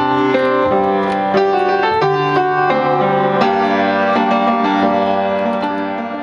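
Piano playing a slow chordal passage, sustained notes changing about every half second, fading out near the end.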